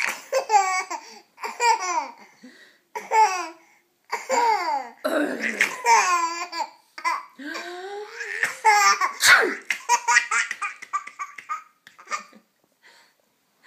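A young child laughing hysterically, in a run of high-pitched bursts with short breaths between them. A brief sharp burst comes about nine seconds in. The laughter dies to a few small sounds near the end.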